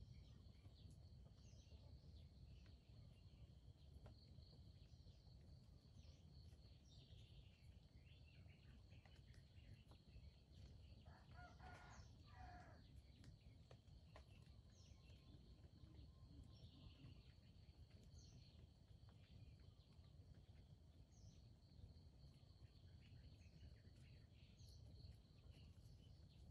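Faint crow of a junglefowl rooster about eleven seconds in, one short crow with a brief break before its last note. It sits over a steady high insect drone and scattered faint bird chirps.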